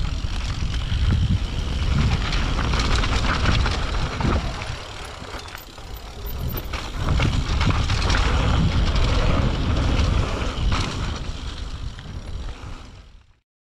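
Mountain bike descending a dirt singletrack, heard from a bike- or helmet-mounted action camera: wind buffeting the microphone and tyre noise on dirt and leaves, with occasional knocks and rattles from the bike over bumps. The sound fades out just before the end.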